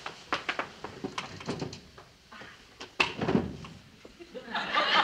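A run of light knocks and clicks, then a sharper thump about three seconds in. Near the end studio audience laughter swells up and becomes the loudest sound.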